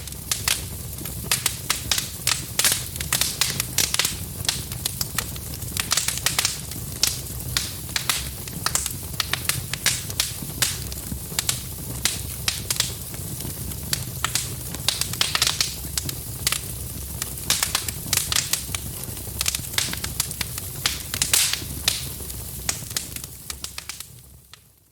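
Wood fire in a fireplace crackling, with dense sharp pops and snaps over a steady low rumble of the flames. The sound fades out near the end.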